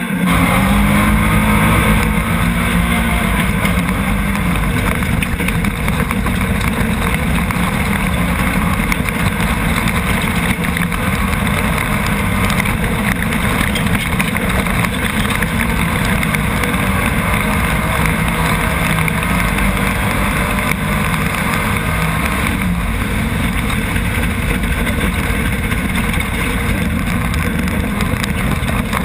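Nissan VQ35 V6 in a Chenowth off-road race buggy running hard at racing speed, heard from the open cockpit, with the revs climbing in the first few seconds. A dense rush of wind and tyre noise on gravel lies over the engine note.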